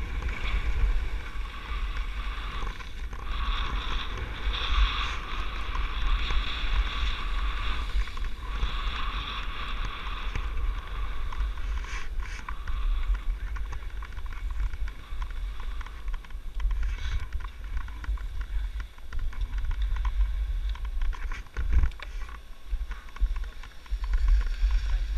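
Skis hissing as they slide over packed snow, with wind buffeting the action camera's microphone. The hiss is strongest at first and eases off about ten seconds in as the skier slows.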